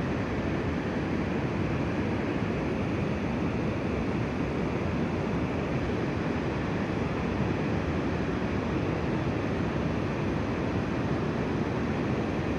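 Steady rush of flowing river water, an even hiss-like noise that holds at one level without breaks.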